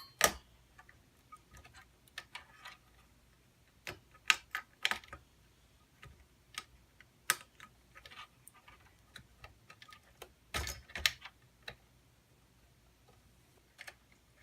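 Irregular clicks and taps of computer hardware being handled, as a CPU heatsink's push-pin fasteners are pressed down and twisted to lock into the motherboard. A small cluster of louder knocks comes about ten seconds in.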